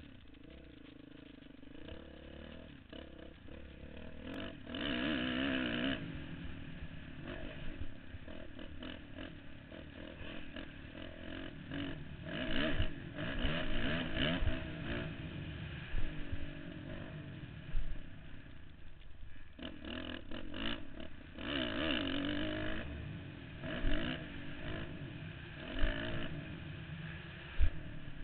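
Motocross dirt bike engine heard from the rider's helmet, revving up and falling off again and again as the bike accelerates and slows around the track, with wind noise and a few low thumps.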